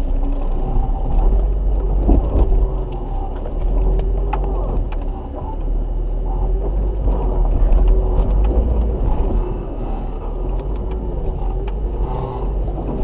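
A 4x4's engine running at low revs as it crawls up a rocky trail, a steady low rumble with a wavering hum above it. Scattered sharp clicks and knocks run through it.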